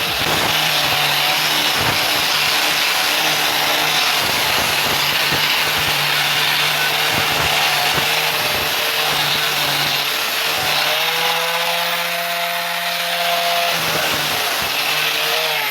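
Electric power sander running steadily against the door panel: a constant motor hum under a rasping, scraping abrasion noise as the surface is sanded down before wrapping.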